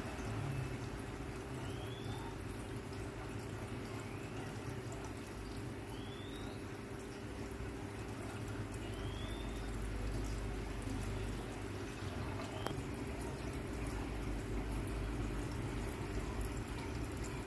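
Aquarium filter running, with water trickling and splashing steadily.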